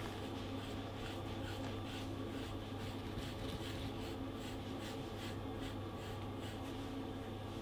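Grooming brush raking repeatedly through a shiba inu's thick shedding undercoat, about two to three scratchy strokes a second, over a steady low hum.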